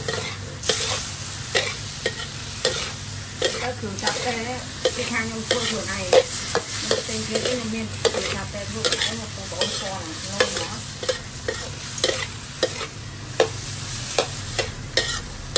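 Metal spatula scraping and knocking against a steel wok as squid rings are stir-fried, with the pan sizzling underneath. The spatula strokes come about once a second over the steady sizzle.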